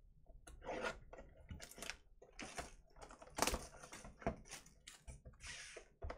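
Plastic shrink wrap crinkling and tearing as a sealed box of baseball cards is unwrapped by hand, with irregular crackles and clicks of the cardboard box being handled.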